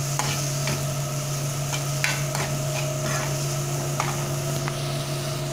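Diced bacon and onion sizzling in a thin metal pan while a metal spoon stirs them, clinking and scraping against the pan at irregular moments. A steady low hum runs underneath.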